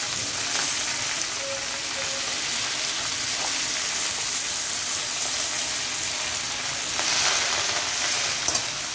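Gongura (sorrel) leaves sizzling in hot sesame oil in a kadai, a steady frying hiss. It grows a little louder near the end as a metal ladle stirs the leaves.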